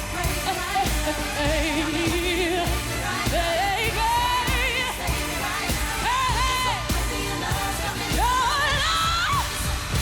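Live pop music: a woman singing long, wordless, wavering runs with vibrato and slides in pitch over a steady beat with a pulsing bass.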